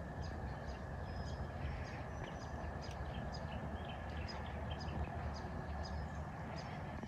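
Birds calling: many short chirps and whistles over a steady low rumble.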